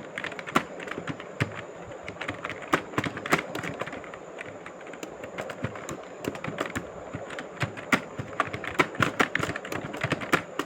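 Fast, irregular typing taps on a mobile phone's on-screen keyboard, several clicks a second.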